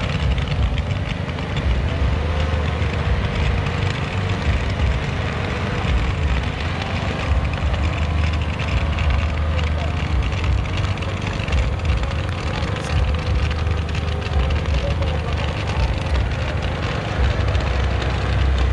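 Crackling fireworks from ground fountains over a steady low rumble, with people's voices in the background.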